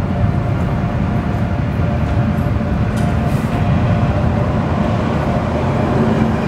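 Storm wind and rain: a steady, low rumbling roar.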